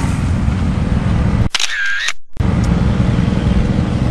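Roadside traffic noise: a steady low rumble of vehicles on the road. It cuts out for under a second about halfway through, while a short high tone sounds.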